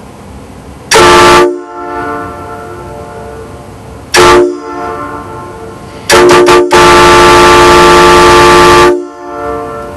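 Kong MK I three-trumpet train air horn blowing a loud chord of several steady tones. It gives two short blasts about three seconds apart, then three quick toots that run into a long blast of about two seconds, each blast ringing briefly as it dies away.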